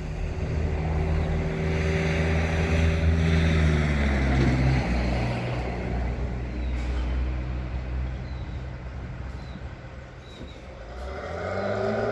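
Drill rig truck's engine running loudly and steadily; its pitch drops about four seconds in, it eases down, then revs up again near the end.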